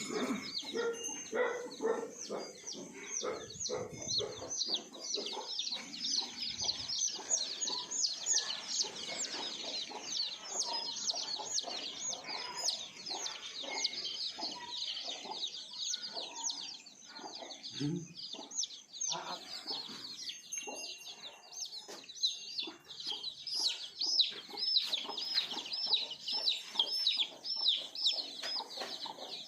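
A flock of desi chicks peeping nonstop, many short high peeps overlapping, with chickens clucking among them.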